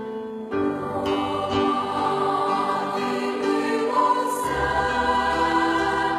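Choral music: a choir singing held, sustained notes, with deeper low notes coming in about two-thirds of the way through.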